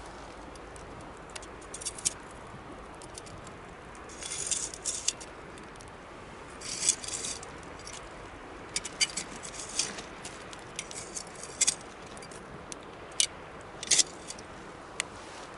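Wood bonfire crackling: irregular sharp snaps and pops over a steady low rush of burning, with short flurries of crackles about four and seven seconds in.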